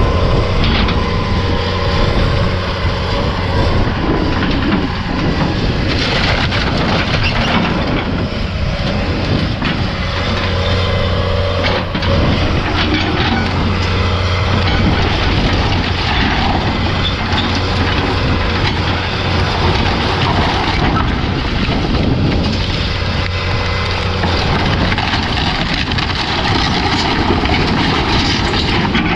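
Diesel engine of heavy earthmoving equipment running steadily under load, with old barn timbers cracking and crunching as the barn is torn down.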